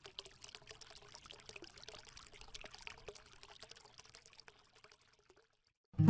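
Faint trickling, pouring water with small crackles and clicks, which stops about five seconds in; a short silence follows, then a loud acoustic guitar strum starts right at the end.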